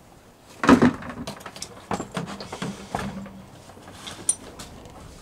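Items being handled and rummaged through in an open hard-shell suitcase: scattered knocks, clicks and rustles, with a louder knock near the start.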